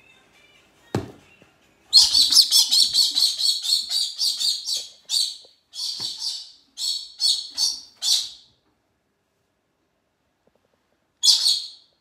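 Galah (rose-breasted cockatoo) giving a rapid run of short, harsh, high-pitched screeches, several a second, for about six seconds, then one more brief burst near the end. A single knock about a second in.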